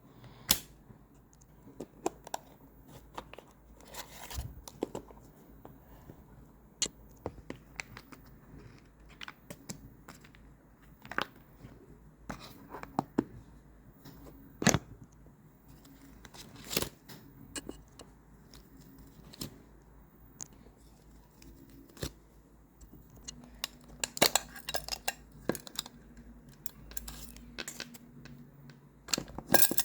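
Handling sounds of photocard packing: scattered sharp clicks, snips and short crinkles of plastic sleeves and packing material being handled. The crinkling thickens into a dense run about three-quarters of the way through, and again near the end.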